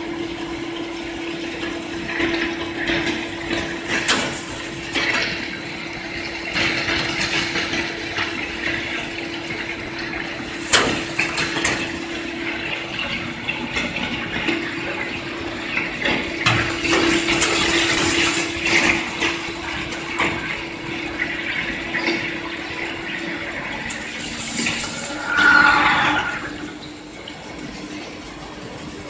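CNC plate drilling machine running: a steady hum with a noisy hiss over it and several louder hissing spurts. The hum and hiss die down about 26 seconds in.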